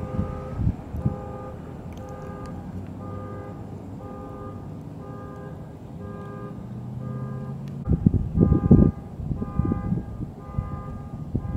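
Repeated electronic beeping, two or three short beeps a second in shifting pitches, with bursts of low rumbling noise that are loudest about eight to nine seconds in.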